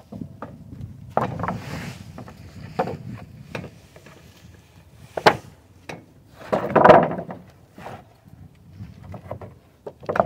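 Freshly sawn blue pine boards being slid and knocked against each other as they are unloaded from the sawmill bed: a scatter of wooden knocks and scrapes. There is a sharp knock about five seconds in, and the longest, loudest scrape comes about a second and a half later.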